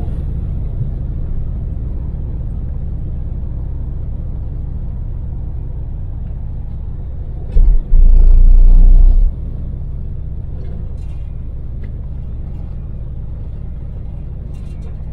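Daewoo Damas mini van's LPG engine and road noise during an expressway drive, a steady low rumble. From about seven and a half to nine seconds in, a short thump and then a loud, low buffeting noise that lasts about a second and a half.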